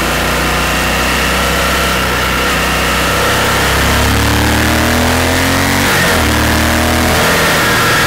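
Honda Varadero motorcycle engine under way, the revs climbing for a couple of seconds, a short break in the engine note about six seconds in, then pulling again, over steady wind rush.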